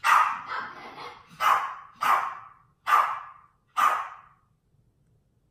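A dog barking: a run of sharp barks about a second apart, stopping about four seconds in.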